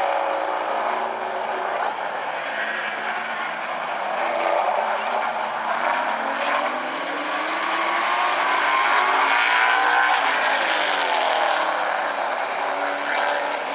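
Several street stock race cars' engines running around the oval. Their pitch rises and falls as they pass, and they get louder about eight seconds in, then ease off near the end.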